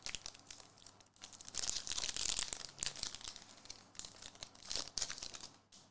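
Shiny foil wrapper of a trading-card pack crinkling and tearing as it is opened by hand, in an uneven run of rustles loudest about two seconds in.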